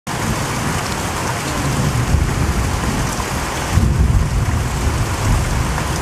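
Steady rain falling on leaves and foliage, an even hiss of many drops, with a low rumble underneath that swells briefly about four seconds in.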